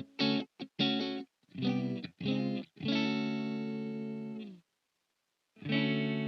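Tokai TST-50 Strat-style electric guitar played through an amplifier: a few short chord stabs, then one chord left ringing for about a second and a half before being cut off, a pause, and a new chord struck near the end.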